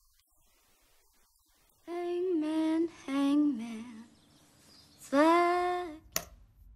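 A solo voice singing three long held notes, the second one stepping down in pitch, after about two seconds of near silence. A single sharp click comes near the end.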